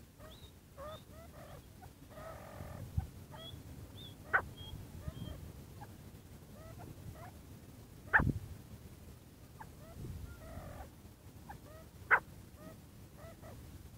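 Francolin (teetar) calling: a run of short rising chirps, broken by a loud sharp call about every four seconds and two brief harsh rasping notes. A low rumble runs underneath.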